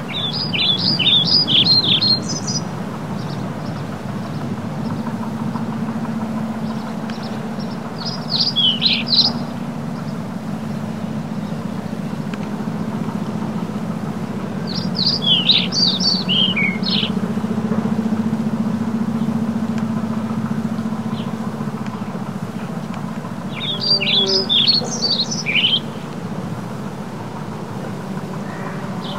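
JCB Fastrac tractor engine running at a steady drone while it works haylage with a rotary rake. A bird sings four short bursts of rapid chirping notes over it: near the start, about a third of the way in, around the middle, and late on.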